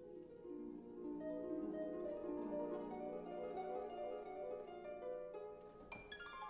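Concert harp playing quick, flowing runs of plucked notes that ring on, with a sudden bright accent about six seconds in.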